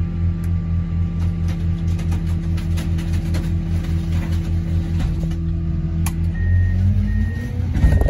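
Heavy machinery engine running steadily with a fast pulsing hum and scattered knocks and creaks. About six and a half seconds in, the engine note shifts and a reversing alarm beeps about three times.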